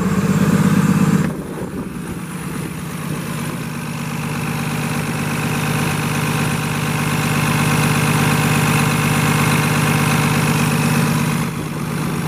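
Cummins ISC 300 hp inline-six diesel in a Freightliner M2 106 truck idling steadily, heard from beside the open engine bay. It is louder for about the first second, then settles to an even hum.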